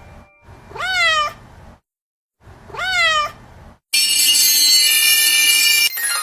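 Two cat meows, each rising then falling in pitch. About four seconds in, loud bright music cuts in.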